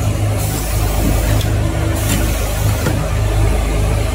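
Automatic breathing-filter assembly machine running: a steady, evenly pulsing low hum, with two stretches of hiss from its pneumatic actuators, one about half a second in and one about two seconds in.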